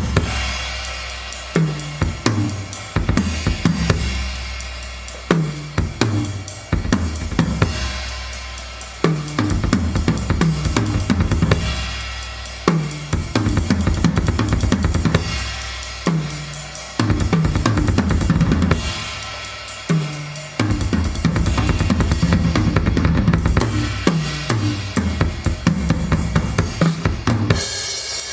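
A drum kit playing a busy groove: bass drum, snare, hi-hat and cymbals, with deep booming low notes swelling every few seconds.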